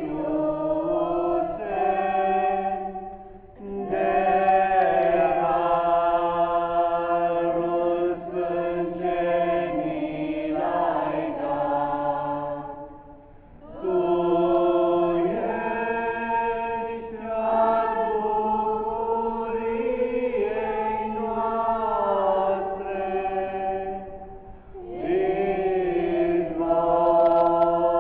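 A small group of women's voices singing a Romanian religious hymn unaccompanied, in long held phrases with brief breaks for breath about every ten seconds.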